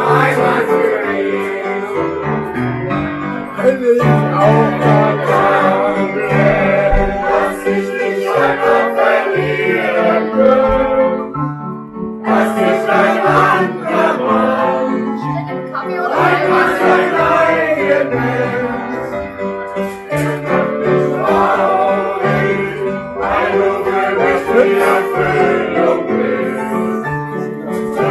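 Live piano played with several voices singing along to it, a continuous song that briefly dips about twelve seconds in.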